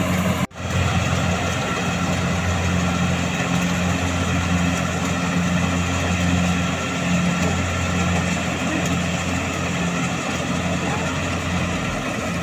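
Kubota rice combine harvester's diesel engine and threshing drum running steadily under load as it cuts and threshes rice, a constant low hum. The sound cuts out for an instant about half a second in.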